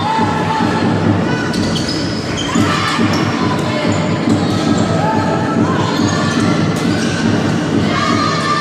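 Indoor volleyball rally: the ball being struck and players' shoes squeaking in short chirps on the sports-hall floor, over a steady hubbub of spectators, all echoing in the large hall.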